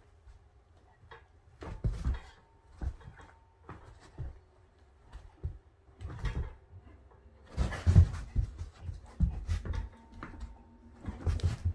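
A Doberman and a Siamese cat play-fighting close to the microphone: scuffling and irregular knocks and bumps, with the dog breathing hard. The loudest bumps come about eight seconds in.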